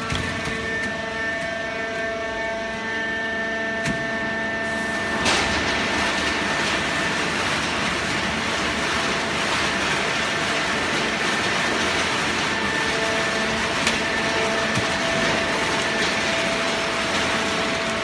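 Horizontal hydraulic baler and its feed conveyor running: a steady machine hum with a few held whining tones. A denser, louder noise sets in about five seconds in.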